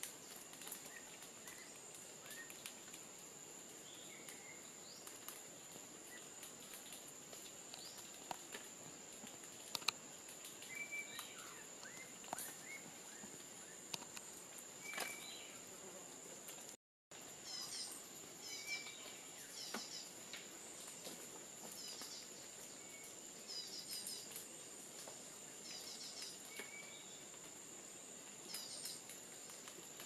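Tropical forest ambience: a steady high-pitched insect drone with scattered bird calls, short whistled notes and quick runs of chirps, and a few sharp taps. The sound drops out for a moment just past halfway.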